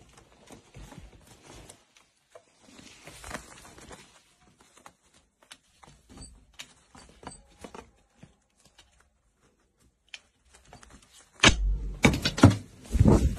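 A corvid's beak and feet clicking and tapping on wood and a stick in a string of light knocks. Near the end come a few loud thuds and flutters, its wings beating as it takes off.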